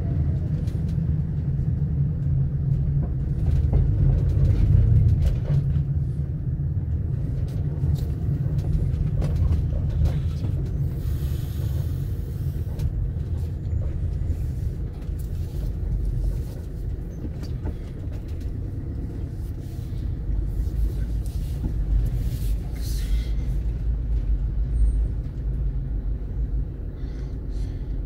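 Steady low rumble of a moving road vehicle, with scattered clicks and a couple of brief hisses, about eleven and twenty-three seconds in.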